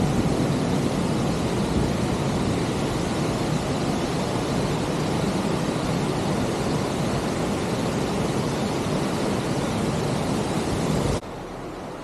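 Steady rush of river water flowing over shallow rocks below a waterfall, close to the microphone. About eleven seconds in it cuts off abruptly to a quieter, steady hiss.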